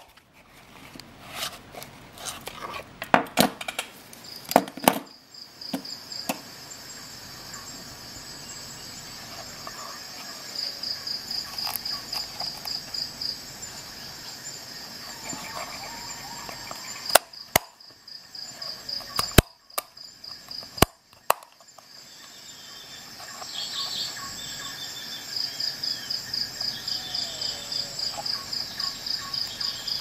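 Sharp clicks and taps from the metal belt clip of a leather knife sheath being handled and turned between its positions: a cluster in the first few seconds, then a few single clicks around the middle. An insect, cricket-like, chirps in quick, even high pulses in two stretches in the background.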